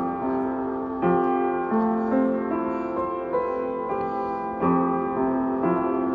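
Piano music: a gentle melody of held notes, changing every half second or so.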